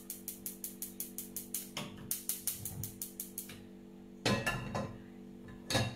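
Gas hob's electronic igniter clicking rapidly and evenly, about five clicks a second, stopping about three and a half seconds in; a short rush follows, then a metal pan clattering on the hob near the end, over a steady low hum.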